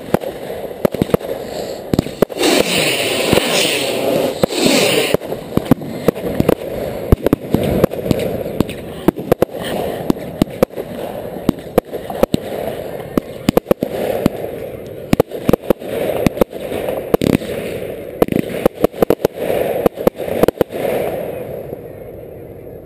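A fireworks display heard at close range, with many sharp bangs and crackles coming thick and fast as rockets launch and shells burst. A loud hissing rush runs from about two to five seconds in. The bangs thin out near the end.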